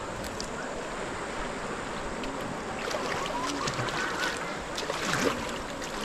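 River water rushing steadily as people float on inner tubes. From about halfway there are splashes and people's voices calling out.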